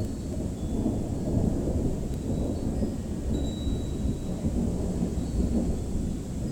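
Thunder rumbling low and continuously, swelling and easing in level with no sharp crack.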